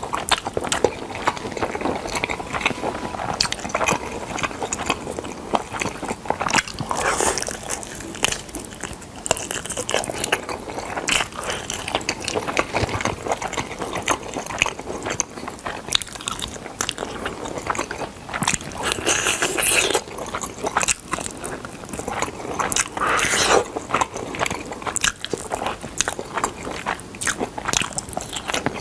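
Smoked chicken being bitten, torn and chewed, with a dense, irregular run of small clicks and crackles and louder clusters of bites.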